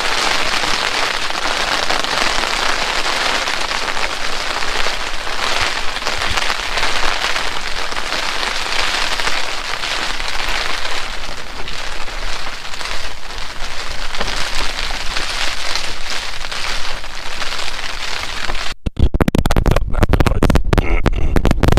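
Steady, heavy rain hissing. About nineteen seconds in it cuts abruptly to a low rumbling noise with brief dropouts.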